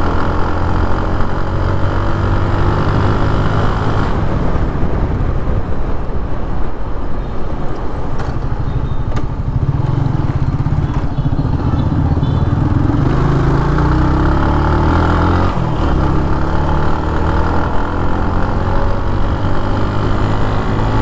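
TVS Apache RTR 180 with its stock exhaust, its single-cylinder four-stroke engine running under way on a ride. The engine note climbs in pitch and drops back briefly about two-thirds of the way through.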